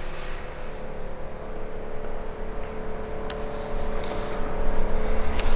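Road-traffic noise with a steady engine hum, the low rumble growing louder over the last couple of seconds as a vehicle comes closer. There are two light clicks, about three seconds in and near the end.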